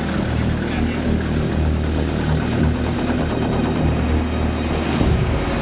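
Jet engine of the Lockheed X-35 X-plane running steadily on the ground: a deep rumble with a thin, steady high tone above it.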